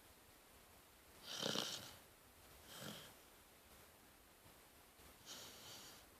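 Rottweiler puppy snoring in its sleep: three soft snoring breaths about two seconds apart, the first, about a second in, the loudest.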